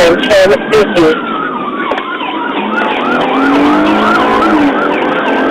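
Police car siren: a slow falling wail, then about halfway through a fast yelp of rising-and-falling whoops, about three a second, over steady road and tyre noise.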